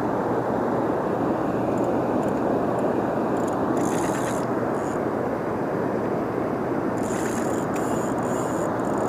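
Steady rush of water pouring from a dam into its tailwaters. Short, high whirring bursts from a spinning reel being cranked come about four seconds in and again around seven to eight seconds in, as a channel catfish is reeled in.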